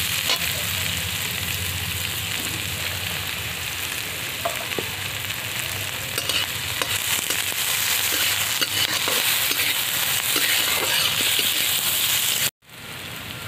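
Sliced onions sizzling as they fry in hot oil in a kadai, with the light scrape and clink of a spatula stirring them now and then. The sound cuts off abruptly near the end.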